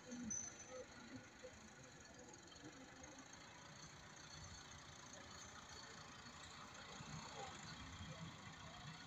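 Faint, steady running of a tractor engine.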